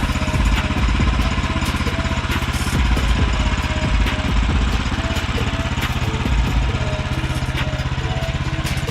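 Woodland Mills HM126 sawmill's small gas engine running steadily, with scattered light knocks.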